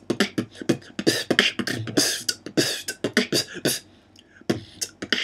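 Vocal beatboxing freestyle built only from the basic three sounds: bass kick, hi-hat and rim shot, in quick strokes. It drops out briefly about four seconds in, then picks up again.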